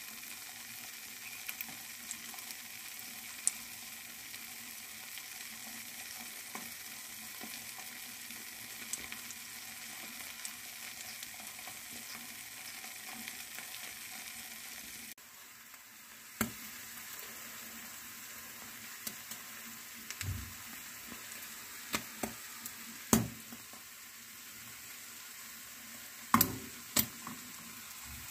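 Eggs and sliced sucuk sizzling steadily in a frying pan, with a fine crackle throughout. In the second half come a few sharp, louder pops and clicks.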